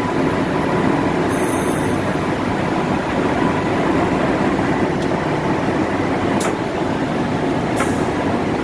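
Steady running noise inside the cab of a diesel locomotive converted to electric traction: a continuous rumble with a faint hum, and two sharp clicks about a second and a half apart near the end.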